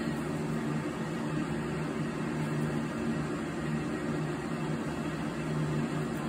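Steady low hum with an even hiss, like room machinery running in the background.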